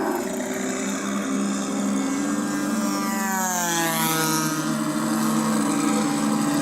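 Radio-controlled P-51 Mustang model (1400 mm span) flying past: a higher motor-and-propeller whine drops in pitch about three to four seconds in as it passes, over a steady low engine drone from its onboard sound-effect unit.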